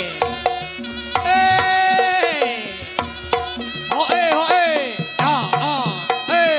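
Reog accompaniment music: hand-drum strokes under a melody that swoops up and down in pitch.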